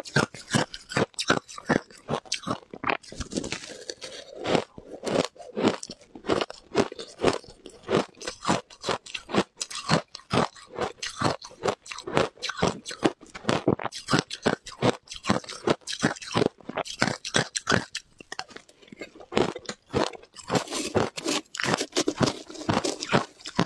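Close-up crunching and chewing of ice, many rapid crunches a second without a break.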